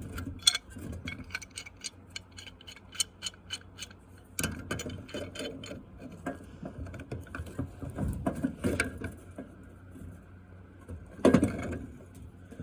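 Metal clicking and knocking from a jammed drill press chuck being worked back and forth with pliers while clamped in a vise. A quick run of clicks for the first few seconds, then scattered knocks, and a louder knock near the end. The chuck mechanism is jammed and not coming apart.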